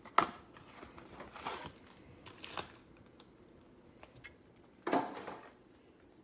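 Cardboard trading-card box being opened with a sharp snap of its flap, then wrapped card packs rustling and scraping as they are handled and set down on a stack, with a louder rustle about five seconds in.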